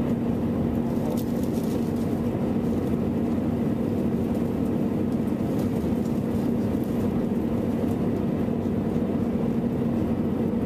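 Cabin noise inside a Boeing 737 airliner on descent: the steady drone of the engines and rushing airflow, with a constant low hum.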